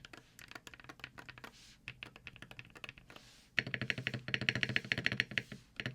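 Typing on a LUMINKEY Magger 68 HE Pro magnetic-switch keyboard with an aluminium plate and silicone foam. Light, scattered keystrokes give way about three and a half seconds in to a faster, louder run of key clacks.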